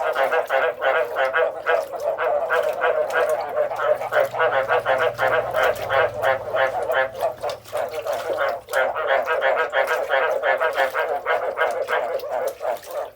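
A chorus of frogs croaking, a dense stream of short overlapping calls many times a second with no pause.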